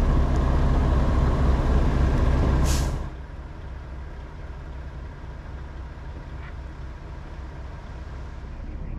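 Semi-truck diesel engines idling with a steady low rumble, and a short air-brake hiss a little under three seconds in. After that the rumble carries on much quieter.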